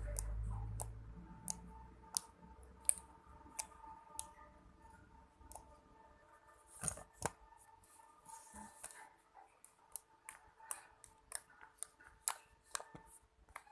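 Homemade slime being squeezed and stretched by hand, its trapped air popping in sharp, irregular clicks about one or two a second, with two louder snaps near the middle.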